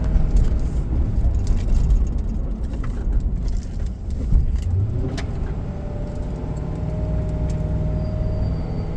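Steady low road and engine rumble inside a moving car's cabin, with a few light clicks and rattles, and a faint steady whine coming in about halfway through.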